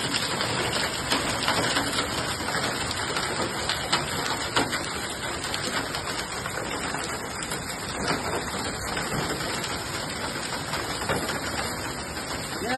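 Large hailstones falling and striking hard surfaces: a dense, steady clatter with sharper, louder hits every few seconds.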